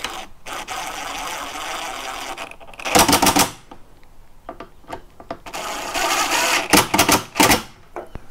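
A powered driver with an extra-long T25 Torx bit running in two spells, driving screws into the plastic housing of a Redmax EBZ8500 backpack blower. Each run ends in a short, louder burst as the screw comes home.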